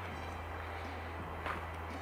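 Footsteps on a dirt and gravel trail: a few soft steps about a second apart, over a steady low hum.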